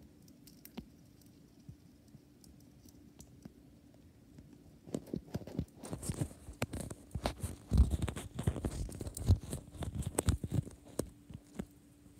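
Hamster nibbling a snack and shuffling in paper bedding. It is faint at first; then, from about five seconds in, comes a run of irregular crackles and rustles, with a few louder low knocks in the middle.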